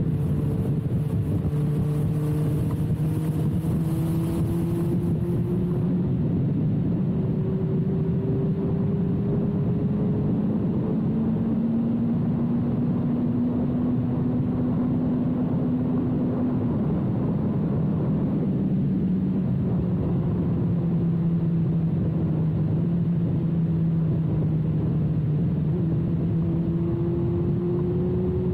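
2006 Suzuki GSX-R1000's inline-four engine running through a full carbon/titanium Yoshimura exhaust, heard from on the bike while riding. The pitch climbs slowly, drops about two-thirds of the way through, then climbs again near the end. Wind hiss on the microphone during the first few seconds.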